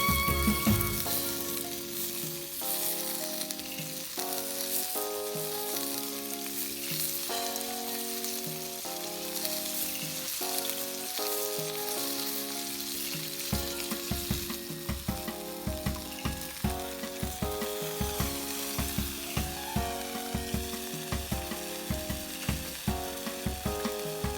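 Food frying in a pan, a steady sizzle, with soft background music of slow held notes. From about halfway, irregular low knocks join in.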